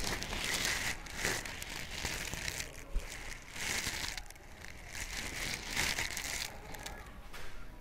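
Soft, irregular rustling and crinkling noises coming in uneven bursts.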